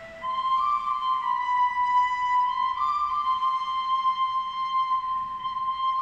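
Flute-like whistling tones held for a second or two at a time, stepping between a few pitches.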